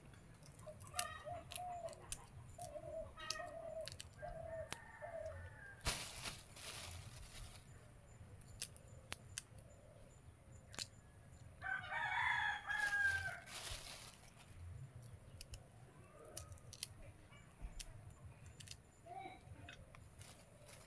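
Chickens clucking with short repeated calls, and a rooster crowing once about twelve seconds in. Sharp clicks and snaps throughout from hands breaking the seed pods out of roselle calyxes and handling a plastic bag.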